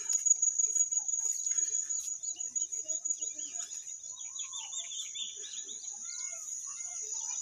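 A steady high-pitched insect drone with many short bird chirps and calls over it, including a quick run of chirps about four seconds in.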